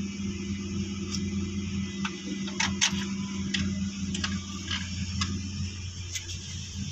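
Scattered light metal clicks and clinks as an alternator mounting bracket and its bolts are handled and fitted against the alternator, about eight irregular taps with the sharpest nearly three seconds in. A steady low hum runs underneath.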